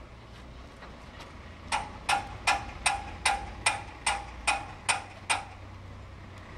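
Hand hammer striking a metal locomotive fitting: about ten even blows, roughly two and a half a second, each with a short metallic ring, starting nearly two seconds in.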